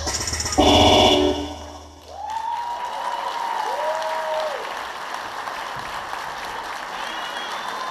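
Music plays for the first second and a half and then stops. An audience then applauds and cheers, with a few whoops rising and falling over the clapping.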